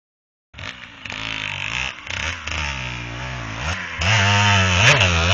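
Aprilia RX 125 dirt bike engine revving, its pitch rising and falling repeatedly as the throttle is worked, growing louder about four seconds in as the bike accelerates.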